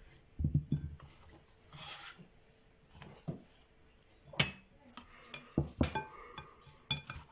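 Kitchen handling: a series of sharp knocks and clinks of dishes and utensils, several ringing briefly, as cut lemon pieces are added to the oranges in a dish.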